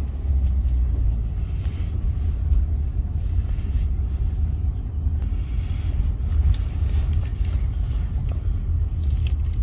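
Steady low rumble of a car being driven, heard from inside the cabin.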